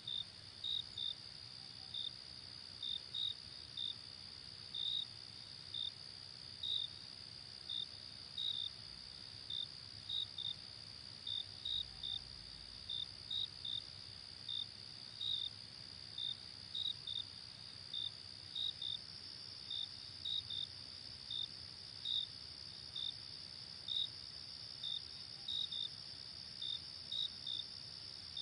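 Night insect chorus: a steady high-pitched trill under short, sharp chirps that repeat irregularly, about one and a half a second, often in pairs.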